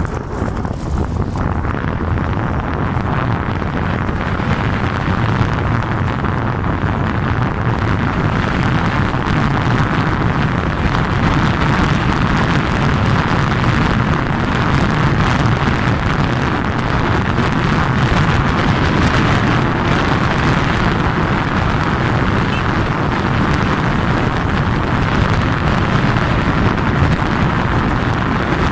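Steady wind rush on the microphone of a moving two-wheeler riding along a road, with the ride's road and vehicle noise underneath.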